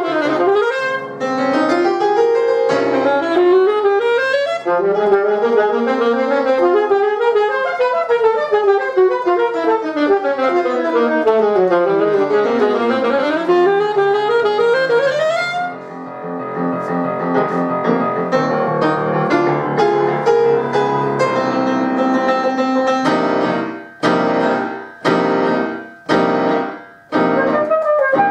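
Alto saxophone and Petrof grand piano playing classical music: the saxophone runs fast scales up and down for about the first half, then the texture changes, and near the end comes a string of short, detached chords.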